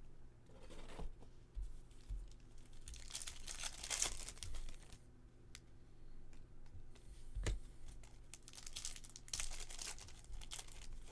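Baseball card pack wrappers being torn open and crinkled. The rustling comes in two bursts, with a soft knock between them.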